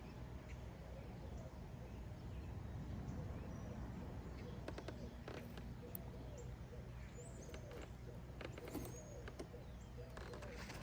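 Faint background with a steady low hum, scattered bird calls and a few light clicks and knocks.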